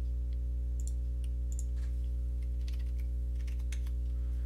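Faint, scattered clicks of a computer keyboard and mouse as a dimension value is entered in CAD software, over a steady low electrical hum.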